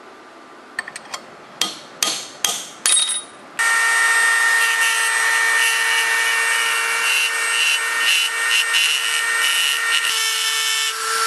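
A handheld high-speed rotary grinder porting the aluminium cylinder head of a Tillotson 212cc engine: after a few sharp clicks, the grinder starts about three and a half seconds in and runs steadily with a high whine, its pitch and level wavering as the bit cuts in the port.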